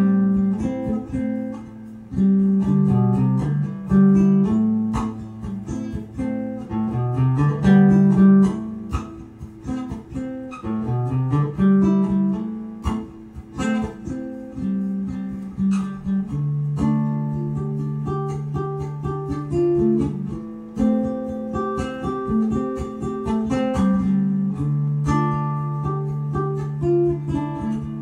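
Caramel six-string guitalele, plugged into an amplifier, played solo: a tune of plucked single notes and chords, with some longer ringing chords in the second half.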